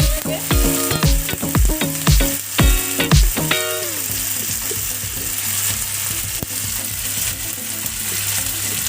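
Spice paste of ginger, garlic, tomato and dried chilli frying in hot oil with fried onions in a pan, a steady sizzle. Rhythmic music with a thumping beat plays over it for the first three or four seconds, then stops.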